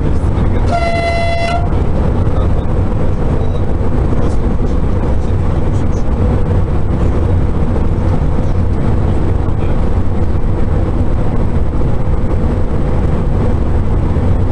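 Cab of a Sapsan (Siemens Velaro RUS) high-speed electric train running at speed: a loud, steady rumble of running noise with a faint steady hum. About a second in, a single toot sounds for about a second.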